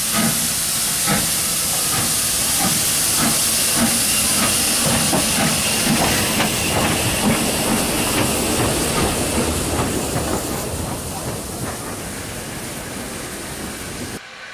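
Austerity 0-6-0ST saddle tank steam locomotive getting under way, its exhaust beats coming quicker over a loud, steady hiss of steam, the sound fading as it draws away. It cuts off suddenly just before the end to quieter background.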